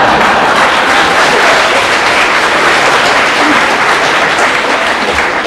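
Studio audience applauding, loud and dense, easing slightly toward the end.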